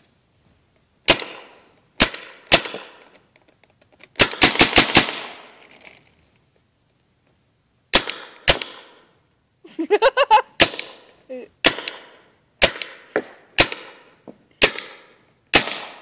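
Spyder paintball marker firing CO2-powered shots: three single shots, then a fast string of about six a few seconds in, then single shots about a second apart.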